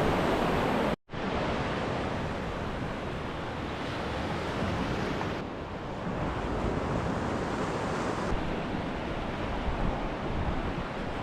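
Ocean surf breaking and washing on the beach, a steady rushing with wind buffeting the microphone; it cuts out briefly about a second in.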